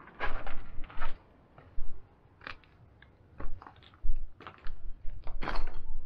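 Footsteps crunching on rubble and grit scattered over a concrete floor, irregular steps about once a second.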